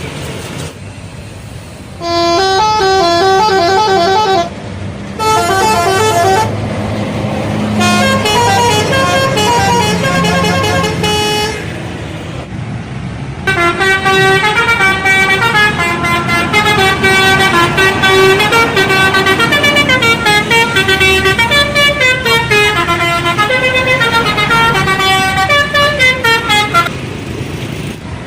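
Bus telolet horn: a set of electric air-horn trumpets playing quick, tune-like runs of notes. It sounds in a few short bursts, then one long melody through most of the second half, over the bus's engine rumble.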